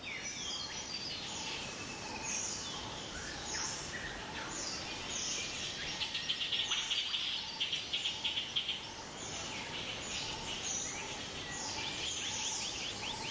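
Birds and insects: short falling chirps about once a second, with a rapid buzzing trill in the middle, over a steady hiss.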